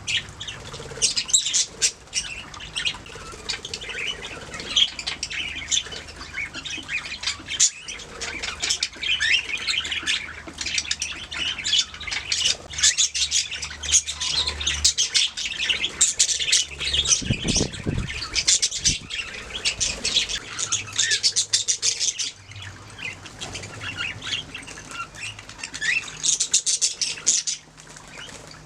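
A group of budgerigars chirping and chattering in a dense, busy stream of quick warbling calls, easing briefly about two-thirds of the way through.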